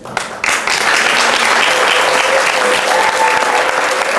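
Audience applauding, starting suddenly and reaching full strength within about half a second, then holding steady.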